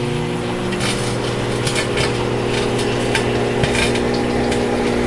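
Microwave oven running with a steady electrical hum, with irregular sharp crackles and snaps from the metal placed inside it, typical of arcing.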